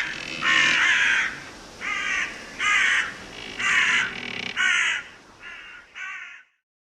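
A crow cawing repeatedly: about eight harsh caws, roughly one a second, growing quieter toward the end.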